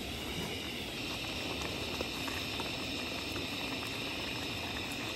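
A steady hissing noise with a brighter high hiss over it.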